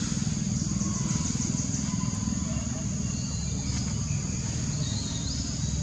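Outdoor ambience: a continuous high insect drone with a few short chirping bird calls, over a steady low rumble.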